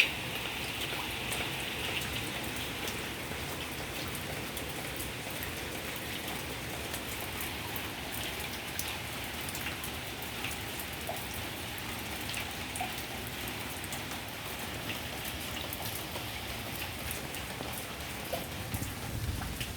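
Heavy rain falling steadily, a constant hiss with many small drop impacts ticking on surfaces.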